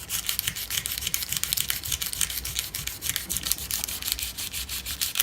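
Fine-grit sandpaper rubbed by hand on a titanium part in quick back-and-forth strokes, several a second, polishing the metal surface.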